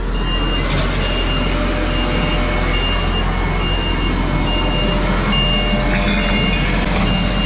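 A tractor engine idling steadily, with a short high electronic warning beep repeating evenly about once every 0.8 seconds.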